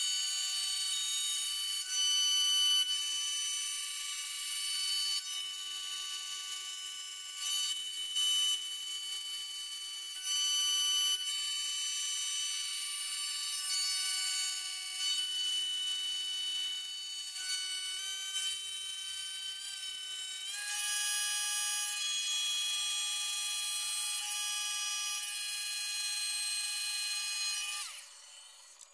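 End mill on a CNC-converted Bridgeport Series 1 milling machine cutting a magnesium plate: a steady high-pitched whine of several held tones, rising and falling in loudness as the cut goes on. The whine steps slightly higher about two-thirds of the way through and drops away near the end as the tool lifts clear.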